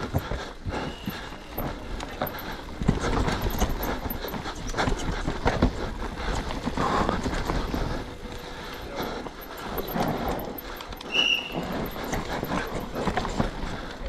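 Cube Two15 downhill mountain bike running fast over dry, rough dirt: tyres scrubbing and crunching, with a steady clatter of chain and suspension and many uneven knocks as it hits roots and bumps. A brief high squeak about eleven seconds in.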